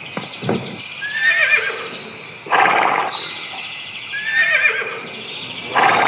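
Horse whinnying: two calls about three seconds apart, each a wavering high-pitched cry followed by a louder, rougher blast.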